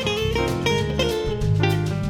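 Bossa nova music: a plucked guitar playing quick, busy notes over a steady bass line.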